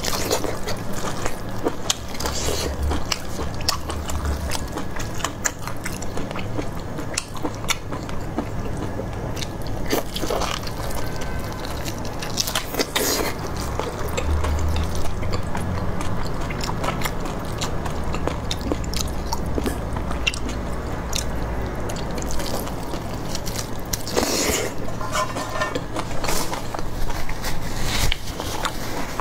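Close-miked chewing and biting of braised beef ribs: wet mouth sounds with many small clicks and smacks throughout.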